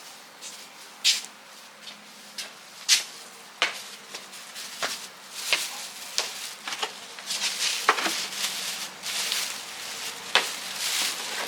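Hands working on angle grinder parts: irregular sharp clicks and taps of small metal and plastic pieces, with stretches of scraping or brushing from about seven seconds in.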